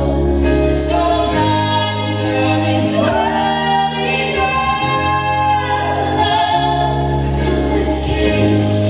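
Live pop concert music: sung vocals holding long notes over sustained accompaniment with a steady bass.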